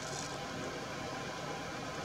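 Steady rushing noise of river water flowing over stones, even and unbroken.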